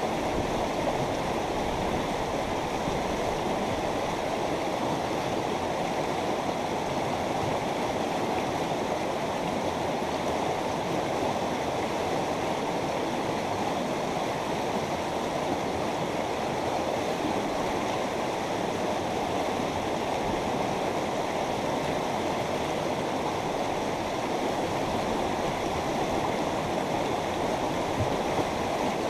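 A mountain river running over rocks, a steady rushing and gurgling of flowing water with no change.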